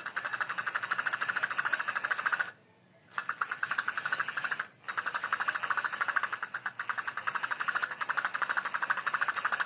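Freshly reassembled Escualo fishing reel being worked by hand, giving a fast, even run of mechanical clicks. The clicking comes in three spells, with short breaks about two and a half and nearly five seconds in.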